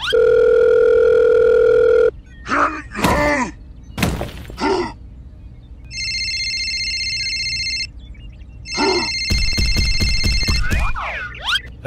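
Cartoon phone-call sound effects: a loud steady dial tone for about two seconds, squeaky sped-up gibberish voice chirps, then an electronic phone ringtone sounding twice, with a rapid buzz under the second ring.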